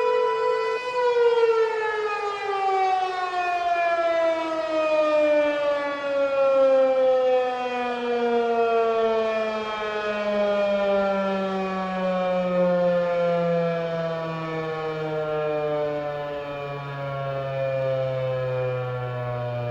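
American Signal T-128 electromechanical siren holding its tone for about a second, then winding down in one long, slow, smooth fall in pitch as its rotor coasts to a stop at the end of the attack signal. The sound echoes.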